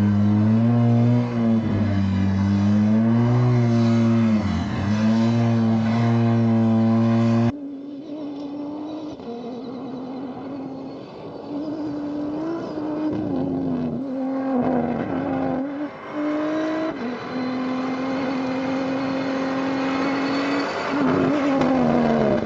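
Rally-raid car engines revving and changing pitch as they drive off-road. A loud, close engine note wavers up and down, then about seven seconds in it cuts abruptly to a quieter one whose pitch shifts and glides near the end.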